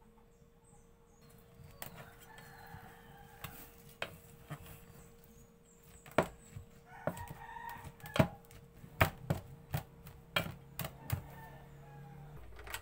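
Wooden spoon knocking and scraping against an aluminium rice-cooker pot as cold leftover rice is broken up and stirred, with about a dozen sharp knocks in the second half.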